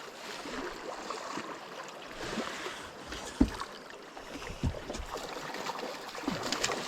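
Water rushing and lapping around a fishing boat in strong river current, with two dull knocks, the louder about three and a half seconds in.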